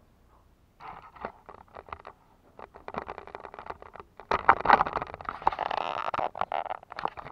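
Kittens' claws scratching and rustling on a filled woven sack as they climb and play on it: a dense crackling scratching that gets louder in the second half and stops abruptly near the end.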